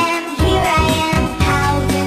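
Children's nursery-rhyme music with a steady beat under a melody.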